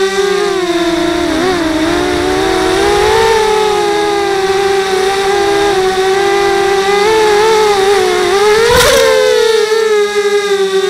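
QAV250 racing quadcopter's four brushless motors and propellers whining steadily in flight, the pitch wavering and dipping as the throttle changes, heard from the quad's own onboard camera. A brief sharp crackle cuts through about nine seconds in.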